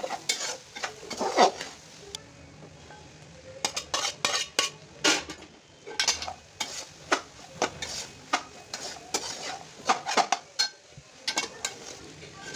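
Metal spatula scraping and knocking against a metal cooking pot while stirring minced mutton keema, in irregular strokes with a short pause about two seconds in.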